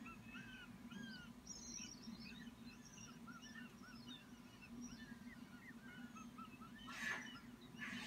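Young hawks calling at the nest as they scramble over prey: many short, high chirps throughout, with a loud harsh squeal about seven seconds in. A faint steady low hum runs underneath.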